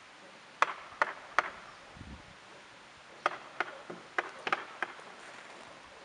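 Sharp knocks from the climber working on the dead white fir trunk: three about half a second apart, then a quicker, uneven run of about seven a couple of seconds later.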